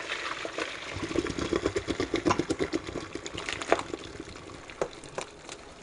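Hot cooking water pouring from a stainless steel pot into a metal colander in a sink, followed by sliced boiled yellow squash sliding out and pattering into the colander as a quick run of small soft ticks. A few single louder knocks come near the end.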